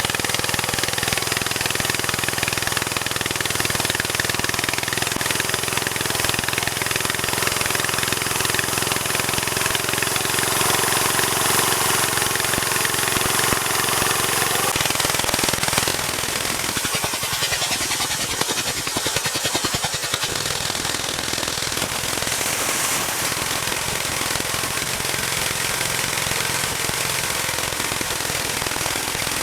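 Small engine of a tree-cutting machine running at a steady speed. About halfway through the steady note gives way to a rapid, even rattle of pops.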